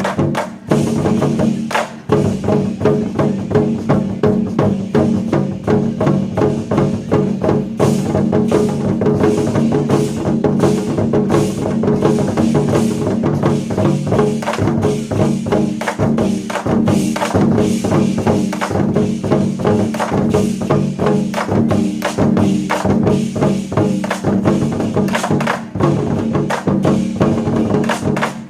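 Ensemble of Chinese war drums beaten in rapid, dense strokes over a musical accompaniment with sustained tones.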